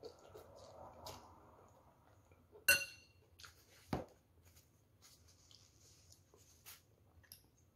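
Noodles being slurped, then a metal spoon clinking against the bowl with a short ring a little under three seconds in, a duller knock about a second later, and a few faint small clicks of utensils.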